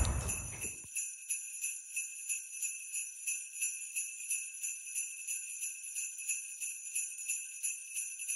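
Jingle bells shaken in a steady, even rhythm, about three shakes a second, after a brief rumble of background noise that fades out in the first second.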